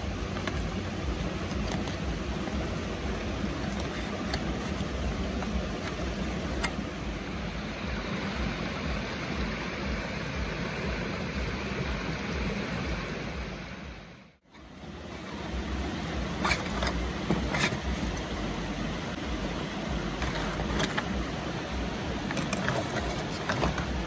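River water rushing steadily, which briefly cuts out about 14 seconds in. A few sharp clicks come a couple of seconds after the break.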